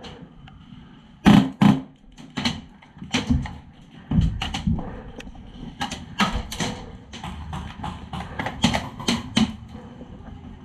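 Airsoft gunfire: many irregular sharp cracks and knocks, single and in quick pairs, echoing in a small wooden shed.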